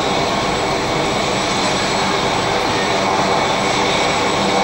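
AgustaWestland AW139 rescue helicopter running on the ground before lift-off: its twin turbine engines and rotors make a steady, unchanging sound, with a high whine over the rotor noise.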